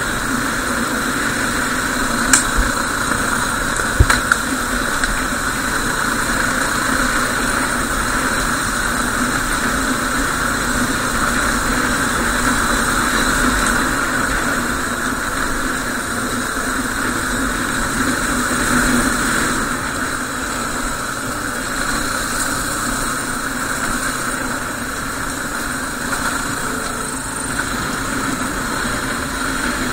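250 cc single-cylinder dual-sport motorcycle engine running steadily. A few sharp knocks come in the first five seconds.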